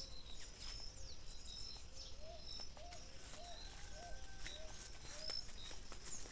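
Wild birds calling: scattered short high chirps, and in the middle a run of about six short, lower notes repeated about twice a second.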